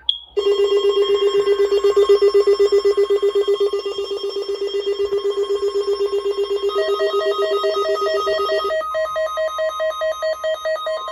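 Electronic emergency-alert alarm sounding for a required weekly test: a loud buzzing tone pulsing about seven times a second after a sharp click. A higher pulsing tone joins about two-thirds of the way in, and the lower buzz stops shortly after.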